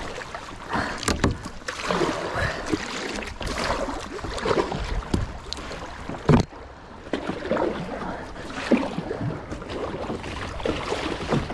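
Kayak being paddled hard: paddle blades splashing in the water in irregular strokes, with a sharp knock about six seconds in.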